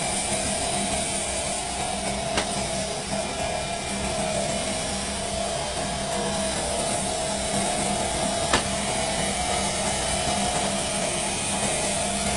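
Air compressor running steadily with a constant whine, broken by two short sharp clicks about six seconds apart.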